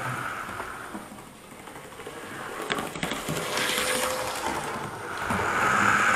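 Hornby OO gauge Class 87 model electric locomotive running on track, its motor whining and its wheels rattling. It fades as the train runs away, then builds again as it comes back toward the microphone near the end.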